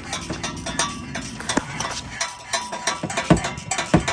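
A wrench working the nut on an exhaust pipe flange bolt: a run of light metal clicks, about four or five a second, broken by a few heavier metallic knocks.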